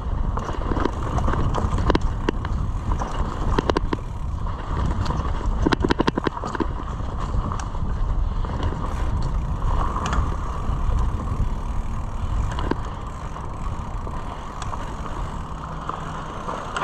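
Mountain bike being ridden along a dirt trail: a steady rumble of tyres and wind on the microphone, broken by frequent short clicks and rattles from the bike over bumps.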